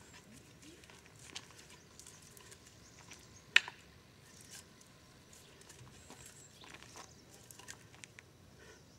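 Feet shuffling and crunching faintly on a gravel path during tonfa drills, with scattered light ticks and one sharp click about three and a half seconds in.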